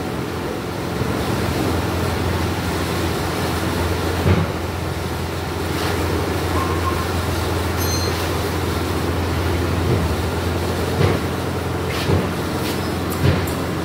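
A steady, low mechanical hum of a running motor or machine, with a few short knocks about four, eleven, twelve and thirteen seconds in.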